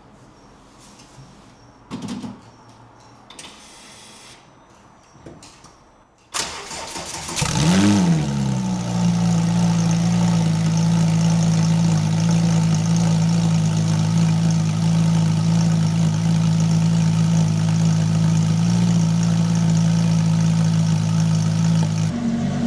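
A thump, then the Porsche GT3 RS's flat-six engine is cranked and fires about six seconds in, flares briefly in revs and settles to a steady idle. Near the end the idle rises slightly.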